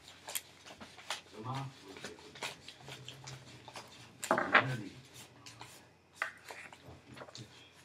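Makeup containers and tubes being rummaged through and handled on a tabletop: scattered light clicks, taps and rubbing, with a louder clatter about four and a half seconds in.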